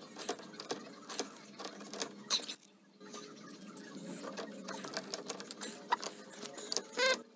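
A steel pipe wrench working on galvanized pipe fittings: a fast run of irregular metal clicks and scrapes as the jaws grip, slip and turn, tightening a joint on the leaking hot-water line. The clicking stops briefly about two and a half seconds in.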